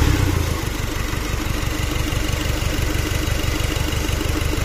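Turbocharged diesel engine, its turbo newly replaced, dropping back from a rev and settling into a steady idle with an even, rapid beat.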